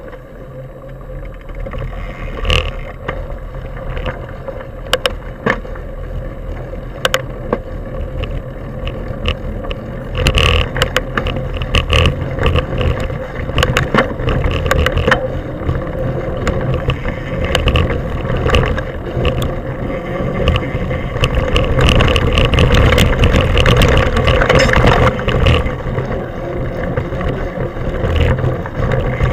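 Mountain bike ridden along a dirt forest trail: a steady rumbling noise of riding with sharp rattles and clicks from the bike over bumps, getting louder as the pace picks up.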